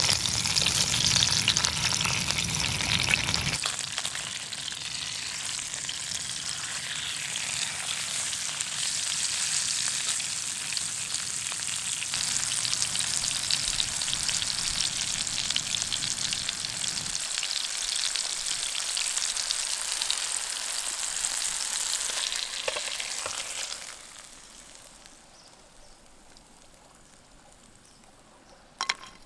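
Snapper fillets frying in hot oil in a pan, a steady crackling sizzle that stops about three-quarters of the way through. A short knock comes near the end.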